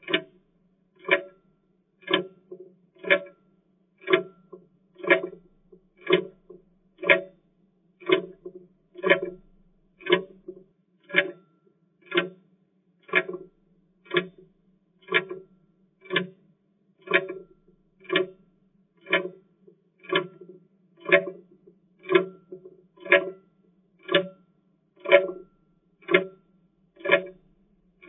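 Clock ticking steadily, about one tick a second, keeping time with a countdown.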